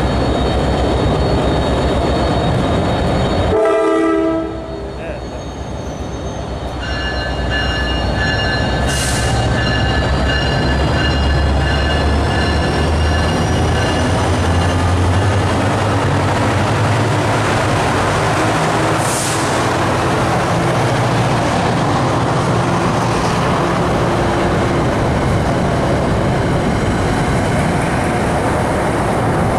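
NJ Transit trains at a station platform: a locomotive running close by, then a horn sounds about four seconds in, and a locomotive-hauled train passes with a heavy rumble and clatter. Two short hisses come near the middle.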